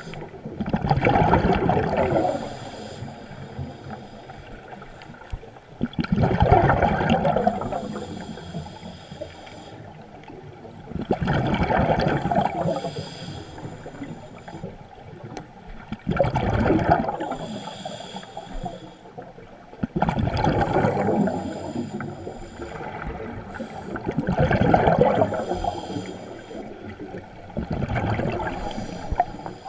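Scuba diver breathing through a regulator underwater: a loud bubbling rush of exhaled air about every four to five seconds, with a quieter hiss of inhaling between.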